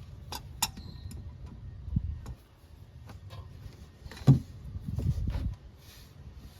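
Clicks and knocks of an oil filter wrench loosening the oil filter, a few sharp clicks at the start and a single loudest knock about four seconds in.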